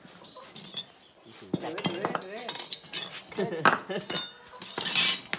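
Hand-forged steel Mèo knives clinking and knocking against each other and against hard surfaces as they are handled, with a loud scrape near the end.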